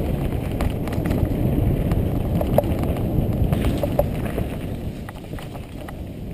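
Wind buffeting a helmet camera's microphone with mountain bike tyres rumbling over a dirt trail, broken by a few sharp clacks from the bike on bumps. It eases off a little near the end.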